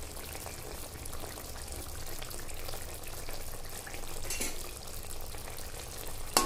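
Thick mustard and poppy-seed fish curry simmering in a pan, bubbling with a soft steady hiss. Near the end a metal spatula clinks once against the pan.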